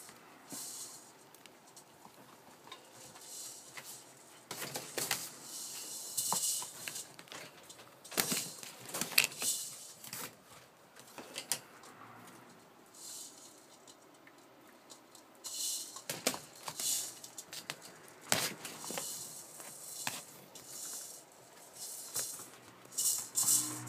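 Rough collie puppies at play: irregular clicking and scrabbling of claws on a wooden floor, rustling of pet sheets and bedding, and scattered small knocks, coming in bursts with a quieter stretch in the middle.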